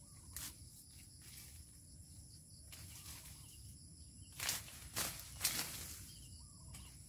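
A hand blade slashing through sugarcane stalks and dry cane leaves as a field is cleared: a couple of light strokes, then three louder strokes about half a second apart in the second half.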